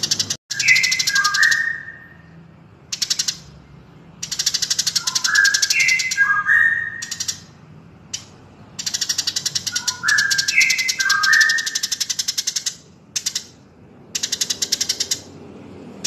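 Recorded birdsong mixing Eurasian tree sparrow and white-rumped shama: bursts of fast, dry chattering a second or more long alternate with short clear whistled notes that step down in pitch. The same phrase comes round about every four to five seconds, as in a looped training track.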